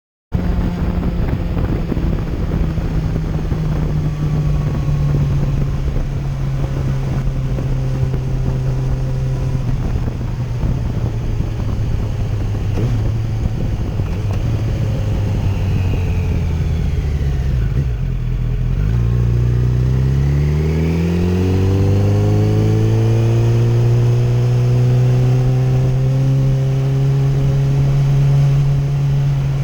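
2008 Yamaha FZ1's inline-four engine running under way at a steady note. The pitch falls about 18 s in, then climbs smoothly over the next few seconds as the bike accelerates, and holds steady again.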